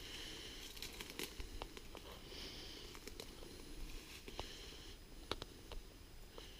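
Faint scattered snaps, clicks and rustles of someone stepping slowly through forest brush and twigs, with a few soft high chirps in the background.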